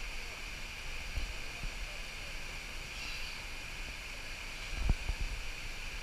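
Small waterfall cascade rushing steadily. A few short low thumps sound over it, the loudest about five seconds in.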